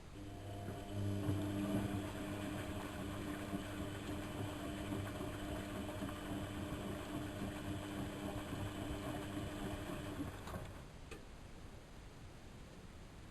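Lloyds 825 washing machine running: a steady motor hum that starts at once and cuts off about ten seconds in.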